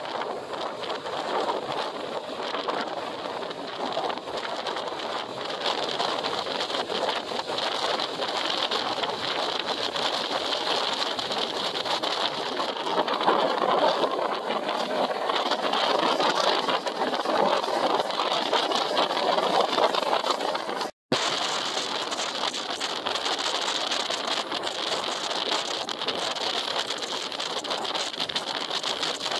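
Distant roar of a departing jet airliner's engines heard from the ground, swelling in the middle and fading. It breaks off abruptly about two-thirds of the way in and gives way to a steadier, thinner hiss.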